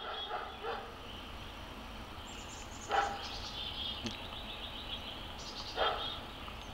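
Woodland birds singing, with rapid high trills over a steady low background noise. A few short, louder calls break in, once about three seconds in and again near six seconds.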